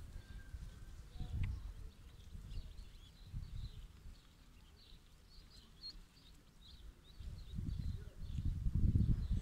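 Ducklings peeping faintly in many short, high notes, with irregular low gusts of wind noise on the microphone that grow stronger near the end.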